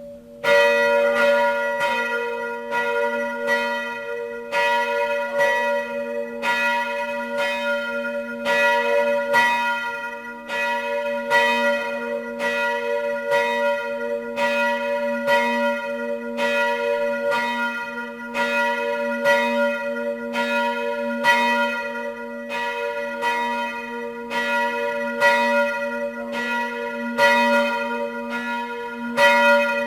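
Church bells pealing, struck again and again about twice a second, their tones ringing on and overlapping. The full peal comes in sharply about half a second in.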